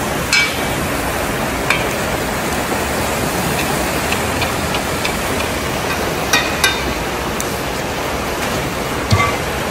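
Steady sizzling hiss of shredded carrots and other vegetables cooking in a huge cauldron, with a few sharp metal clinks of a long-handled skimmer against the pot, two of them close together about six seconds in.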